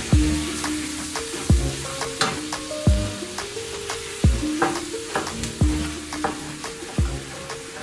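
Chopped onions and tomatoes sizzling in a frying pan while a wooden spoon stirs and scrapes them, over background music with a melody and a deep thumping beat about every second and a half.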